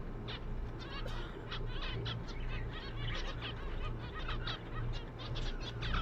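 Small cage finches, zebra finches and canaries, calling in an aviary: many short, high chirps overlapping throughout, over a low steady hum.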